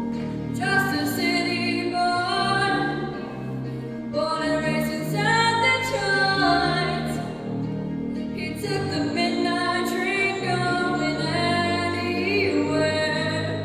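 Live singing over a low instrumental accompaniment: sustained sung phrases with vibrato, a new phrase beginning roughly every four seconds.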